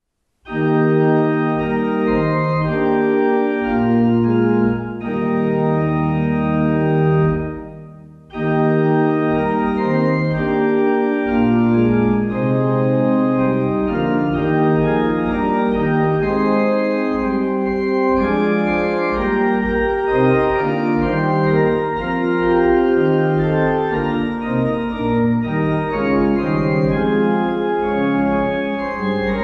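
Organ playing a hymn tune in slow, sustained chords, with a short break between phrases about eight seconds in.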